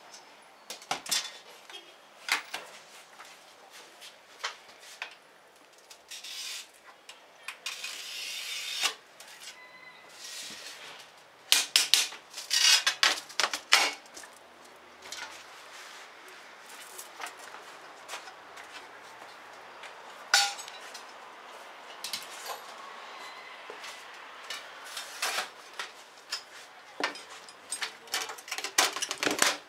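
Pieces of cut sheet glass clinking and knocking against each other and the work table as they are handled, with a brief scraping sound and, about halfway through, a quick run of loud clinks.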